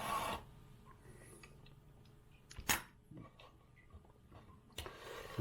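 Quiet handling of a die-cast toy and its box: faint small clicks and rustles, with a sharp tap a little under three seconds in and another near the end.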